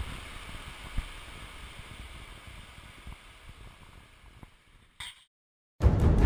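Steady rushing of a nearby river, fading out over a few seconds, with one sharp knock about a second in. After a short silence, music starts near the end.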